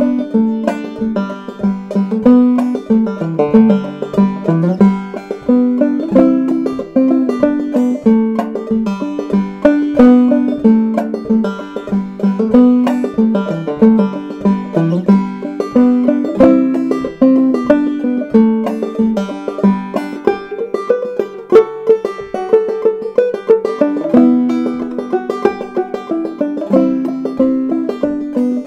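Solo clawhammer banjo playing an old-time tune in G, picked in a steady, driving rhythm of brushed and plucked notes.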